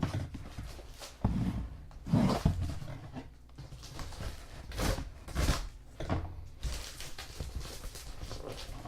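A damaged cardboard shipping box being pulled open and handled by hand: irregular thumps and knocks with rustling and scraping of cardboard, the loudest knocks about a second and two seconds in.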